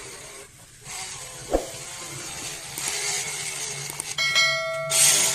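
Homemade 12-volt DC-motor drill running, with a hissing, scraping noise and a sharp knock about one and a half seconds in. Near the end a steady high whine sets in, with a loud burst of noise over it.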